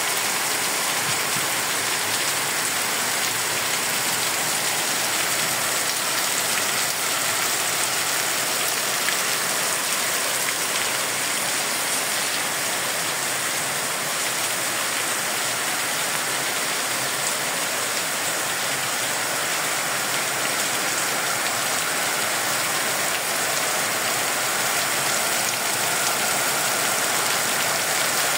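Heavy rain pouring down steadily onto ground, plants and roofs, an even hiss with no let-up.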